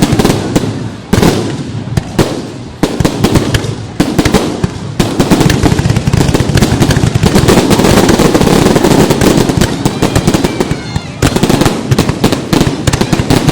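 Fireworks display: rapid bangs of bursting shells that thicken about five seconds in into a continuous dense crackle, which cuts off suddenly about eleven seconds in before separate bangs resume.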